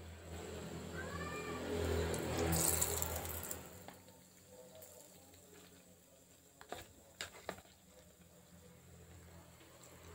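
Battered tempe slices sizzling in hot cooking oil as more pieces go into the frying pan; the sizzle swells over the first few seconds, then settles to a faint crackle. A few sharp clicks sound about two-thirds of the way through.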